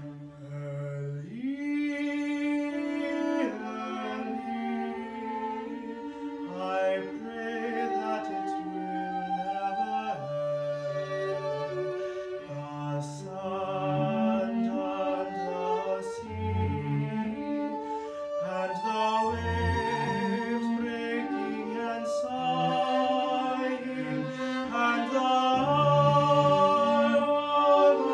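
A young man singing a melody with vibrato, accompanied by a bowed violin and cello. The music swells louder near the end.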